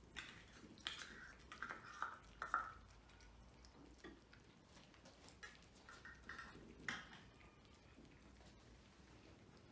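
Cats eating dry kibble from plates: faint chewing, with scattered clicks and light clinks of food and teeth against the plates. They bunch in the first three seconds and again around six to seven seconds.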